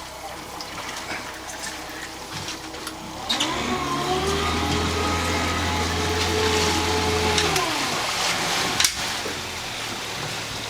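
A motor spins up, runs steadily at one pitch for about four seconds, then winds down, over a background wash of water. A single sharp knock follows about nine seconds in.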